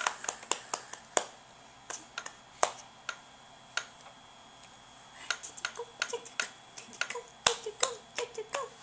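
Sharp plastic clicks and taps from a baby's hands working the toys on a baby walker's activity tray. They are scattered and sparse in the middle and come quicker near the end.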